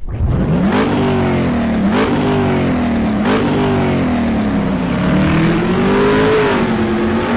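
A car engine accelerating hard. Its pitch climbs and drops back at gear changes about a second in, at two seconds and just after three seconds, then rises and falls more slowly.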